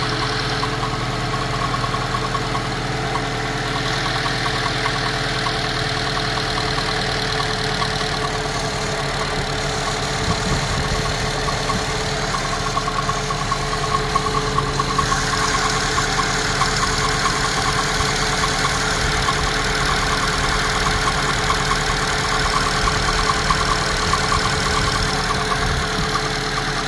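Honda CR-V running at idle with a steady whine and a rapid rattle, an odd noise that the owner cannot identify. About halfway through, a brighter hiss joins it.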